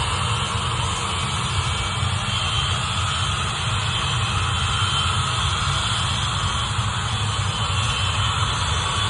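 Ilyushin Il-76's four turbofan engines running steadily at low power: a jet whine over a low rumble.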